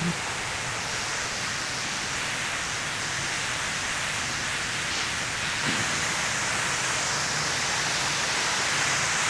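Fountain water falling and splashing in a steady rushing hiss, getting slightly louder near the end.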